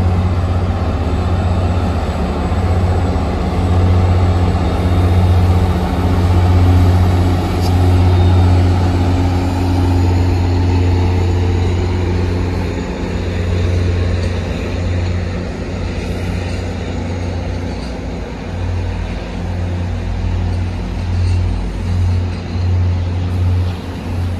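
Commuter rail diesel locomotive running with a loud, steady low drone as it moves a train of bilevel coaches slowly through the yard; the drone is strongest in the first half and wavers from about halfway on.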